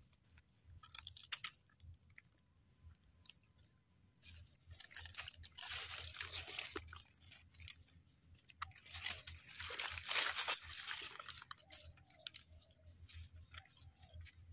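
A kitchen knife scraping and cutting the soil-caked base of a fresh wild white mushroom's stem, faint crunching and scraping coming in short spells with scattered small clicks.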